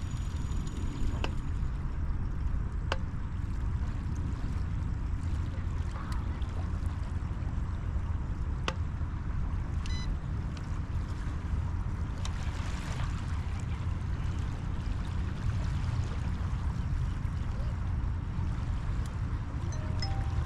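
Steady wind rumble on the microphone at the water's edge, with small waves lapping at the sand and a few faint clicks.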